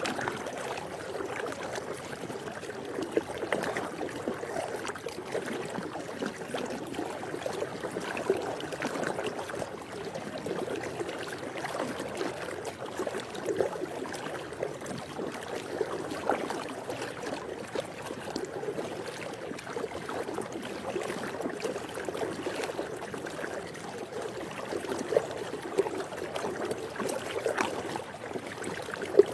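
Swimming pool water lapping and sloshing continuously, with small irregular splashes here and there.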